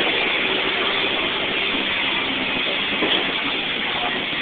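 In-cabin noise of a Ford Escort on the move: its Nissan SR20DET turbocharged four-cylinder running at an even, steady pitch under road and wind noise.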